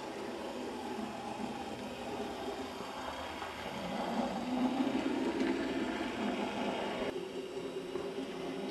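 On30 model locomotive and flat car running along the track, a steady mechanical running noise of the motor and wheels on the rails. It grows louder in the middle as the train passes close, then drops abruptly about seven seconds in.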